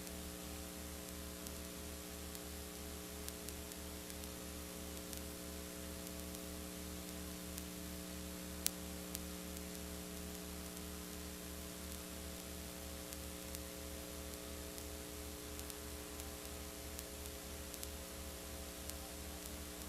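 Steady electrical mains hum with hiss, the soundtrack's background noise while the soldering goes on without audible sound of its own, with a faint regular pulsing in the low hum. A single sharp click comes a little under halfway through.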